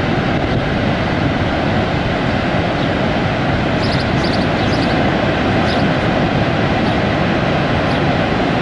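Steady roar of Niagara Falls, a constant loud rushing of falling water, with a few faint high chirps about four seconds in.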